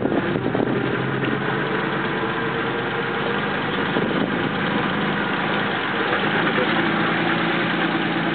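Lancia Aurelia's V6 engine running steadily near idle as the car creeps along at walking pace.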